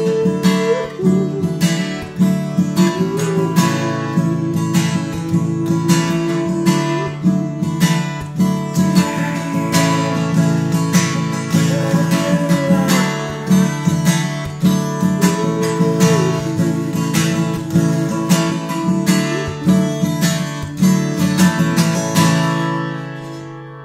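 Acoustic guitar strumming chords in a steady rhythm, then a last chord left to ring out and fade away near the end.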